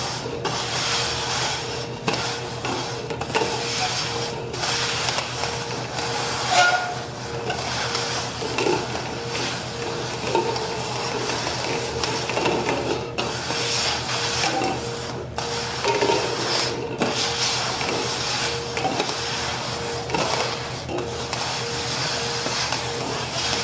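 Red plastic party cups being slid and shuffled rapidly across a wooden tabletop: a continuous scraping, rubbing sound broken by frequent light taps as the cups knock together and are set down.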